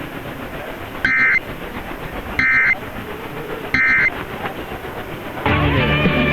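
Emergency Alert System end-of-message (EOM) signal: three short identical bursts of SAME digital data tones, each about a third of a second long and about 1.3 s apart. They mark the end of the Required Monthly Test. They come through an AM radio broadcast over steady static hiss, and music starts near the end.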